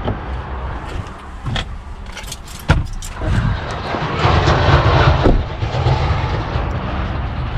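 Keys jangling with several sharp clicks, then a steady low rumble that grows louder about three seconds in.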